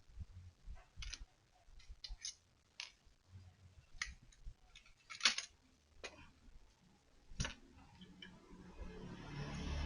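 A handful of sharp clicks and taps at uneven intervals, then a low rumble that swells near the end.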